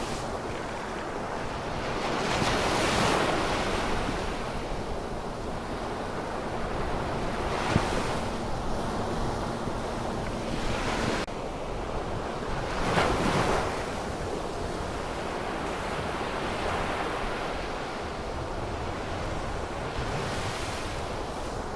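Wind buffeting the microphone over moving water, the noise swelling and falling every few seconds. A faint steady hum runs underneath and cuts off about halfway through, and there is one sharp knock about eight seconds in.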